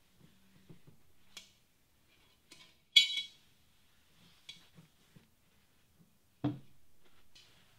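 Paper towel rubbing over a cast iron pot, with a few light taps. About three seconds in, a single sharp ringing metallic clink from the pot, and about a second before the end a dull knock as the pot's feet come down on the wooden bench.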